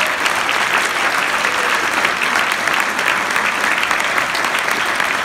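A large audience applauding loudly and steadily, a dense wash of many hands clapping.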